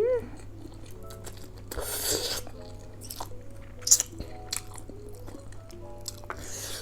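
Close-up eating sounds of spicy noodles and sausages: chewing and biting, with a noisy slurp-like burst about two seconds in and a sharp bite just before four seconds, over soft background music.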